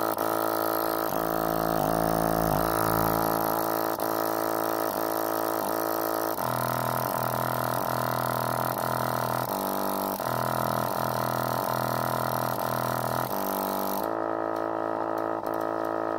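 A 70 W subwoofer playing a deep bass-test track, heard as a buzzy drone of stacked tones that steps to a new pitch every two to three seconds. Near the end the hiss above it drops away and faint ticks come in.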